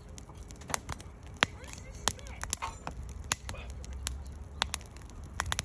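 Firewood burning in a steel fire-pit bowl, crackling with irregular sharp pops and snaps over a low steady hiss.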